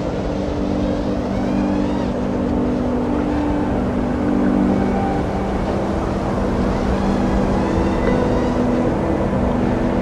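A 5-inch FPV quadcopter's (iFlight Nazgul 5 HD) brushless motors and propellers whining in fast flight, heard from the camera on board, their pitch stepping and gliding up and down with the throttle. Wind rushes over the onboard microphone throughout.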